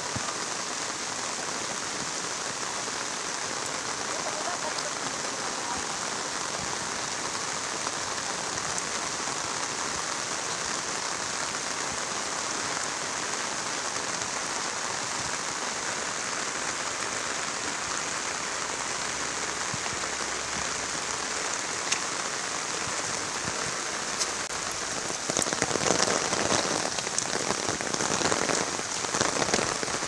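Steady rain falling on a road and vegetation, a continuous hiss that grows louder, with sharper patters, for a few seconds near the end.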